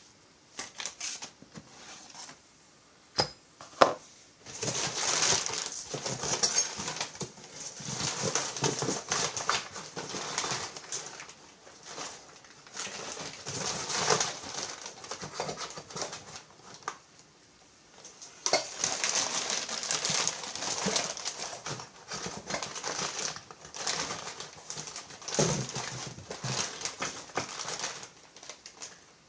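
Hands handling small parts and crinkly packaging on a workbench: irregular crinkling and clicking in long stretches, with two sharp knocks a few seconds in.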